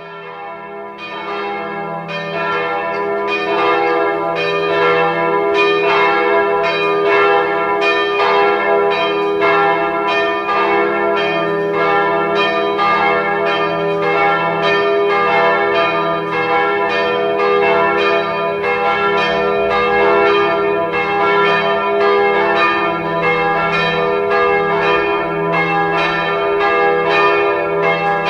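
Orthodox church bells pealing: rapid, repeated strikes of smaller bells over the steady hum of larger bells. The sound fades in over the first couple of seconds.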